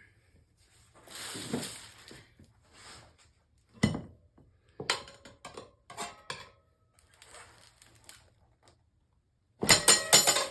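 Steel tire irons clinking and knocking against the wheel rim and each other while the last tight section of a dirt bike tire's bead is levered on. A single sharp knock comes about four seconds in, and a dense burst of rattling metal clatter near the end.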